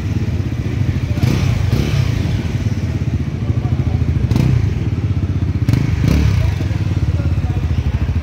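Bajaj Pulsar NS400Z's 373 cc single-cylinder engine idling steadily, an even low beat from the exhaust. A few brief knocks and clatters sound over it.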